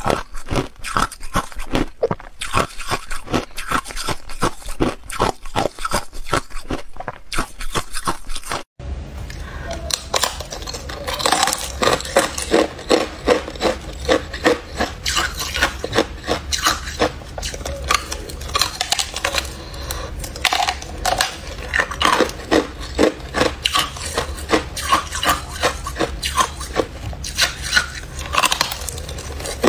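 Close-miked crunching of ice being bitten and chewed, many sharp crunches in quick, irregular succession. About nine seconds in, the sound cuts to a different recording of white, packed ice being bitten and crunched, with a low steady hum underneath.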